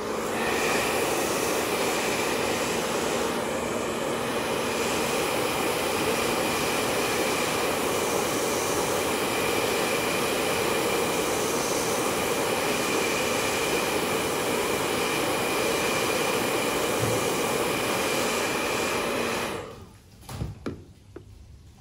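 Handheld hair dryer running, a steady rush of air with a steady motor whine under it, switched on at the start and cutting off about twenty seconds in. A few light knocks follow as the projector is handled.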